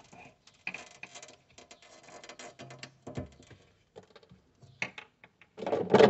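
Scattered small clicks and rustling from a hand tool and wires being handled, with a louder knock near the end.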